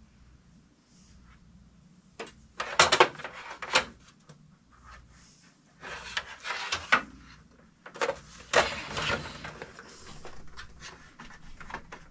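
A power cord being handled and fed behind a printer on a wooden wall shelf: irregular rubbing, scraping and knocks against wood in three bursts a few seconds apart.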